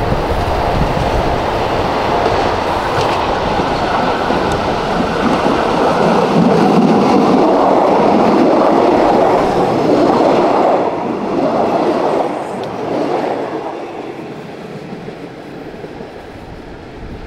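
A 1971 Hitachi/Nippon Sharyo diesel multiple unit with Cummins diesel engines passing close by on the track. Its rumble is loudest while the cars go past, about six to eleven seconds in, then fades as the train moves on down the line.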